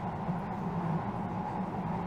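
Keihan Rakuraku limited express train running at speed, heard inside the passenger car: a steady rumble of wheels on rail with an even hum.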